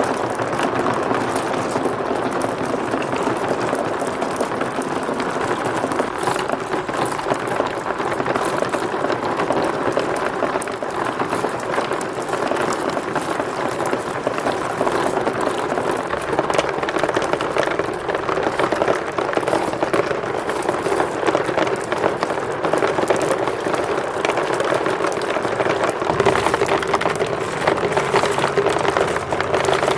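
Many marbles rolling and clattering down plastic slope tracks, a continuous dense rattle of small clicks.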